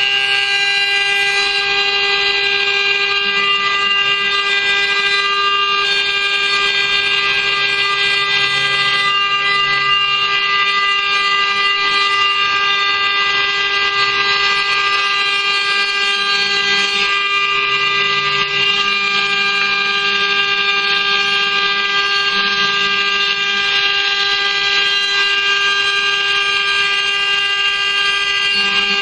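CNC router spindle running a small end mill through a copper sheet, engraving it: a steady, loud, high-pitched whine made of several even tones over a rougher cutting noise.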